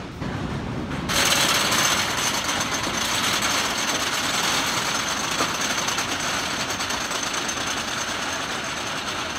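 Wooden roller coaster train climbing the lift hill: a steady, rapid mechanical clatter of the lift chain and track under the cars, starting up about a second in.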